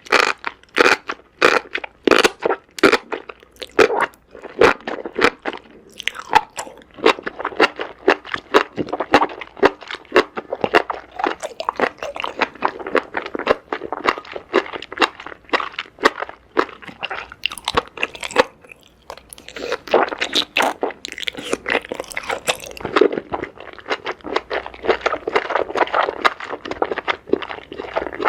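Close-miked ASMR eating sounds: steady, crunchy, wet chewing of a meal of spicy Samyang noodles with enoki mushrooms and squid, with many sharp crackles a second and short pauses between mouthfuls.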